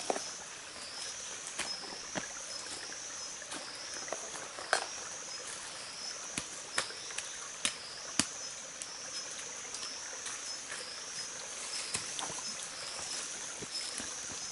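Insects calling: a high, steady buzz that swells and falls about once a second, with scattered sharp clicks, a few louder ones near the middle.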